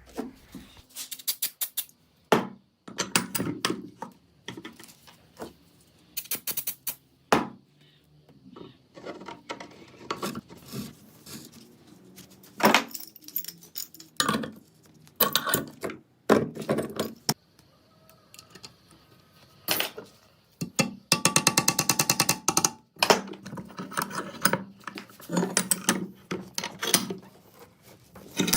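Small metal parts and tools clicking, clinking and knocking as they are handled and fitted, in irregular single strikes with a quick run of rapid clicks about two thirds of the way through.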